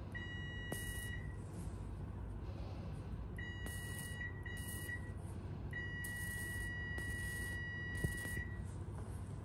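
Hyfrecator (electrosurgical unit) sounding its steady high activation beep in four bursts while its needle electrode desiccates a mole, the last and longest near three seconds, coagulating the wound to stop bleeding. A steady low hum runs underneath.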